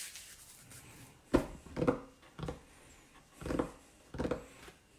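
Hands patting on a wooden cutting board: about five separate soft thumps at uneven intervals, the first the sharpest.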